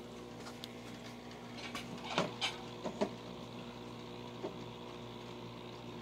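A few footsteps and knocks close together, about two to three seconds in, over a steady low electrical hum.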